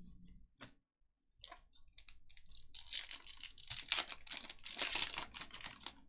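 Plastic wrapper of a Bowman Chrome trading-card pack being torn open and crinkled. The crackling starts about a second and a half in and is loudest around the middle.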